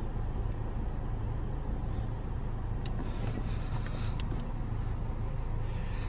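Steady low mechanical hum in the background, with a few faint light clicks and rustles in the middle as a pedal pad and pen are handled.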